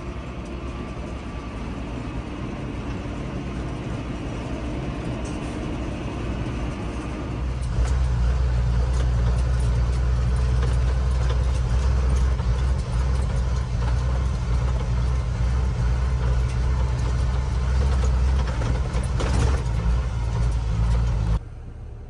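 Tractor engine running steadily, heard from inside the cab. About seven and a half seconds in it cuts to a louder, deeper steady engine drone inside a truck cab, which stops suddenly near the end.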